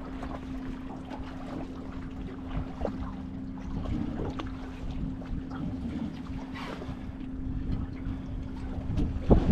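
Steady hum of a small motor on a fishing boat, with wind rumbling on the microphone and scattered small knocks; a louder knock comes near the end.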